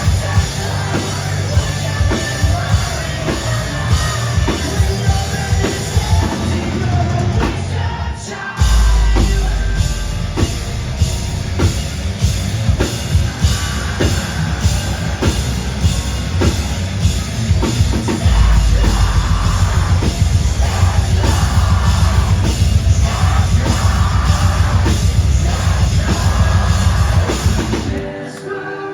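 Live rock band playing loud and heavy, with a pounding drum beat and sung and yelled vocals. A deep, heavy bass comes in about a third of the way through and again about two-thirds through, and the full band drops away near the end.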